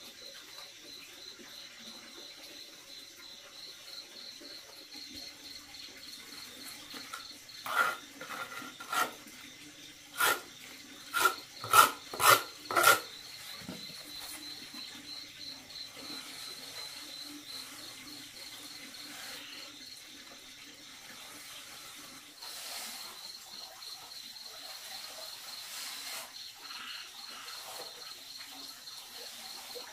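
Crickets chirping steadily in a high, pulsing trill, while a steel plastering trowel works wet cement render on a stove. About a third of the way in comes a quick run of about eight sharp trowel strokes, the loudest sounds, followed by softer scraping.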